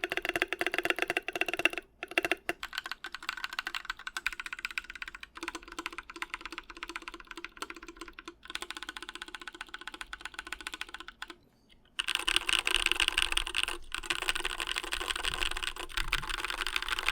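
Typing on an ID80v1 mechanical keyboard with lubed Durock Sunflower POM tactile switches and SA keycaps, unmodded with no PE foam or tape mod: a sound the owner finds hollow from its integrated aluminum plate. Fast, continuous key clacks, pausing briefly after about eleven seconds and then coming back louder and denser.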